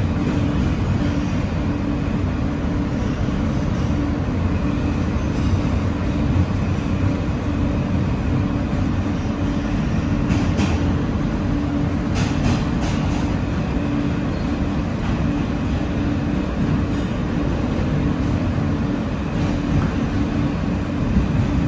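Interior running noise of an R160A New York City subway car moving through a tunnel: a steady low rumble with a constant hum, and a few short clicks about halfway through.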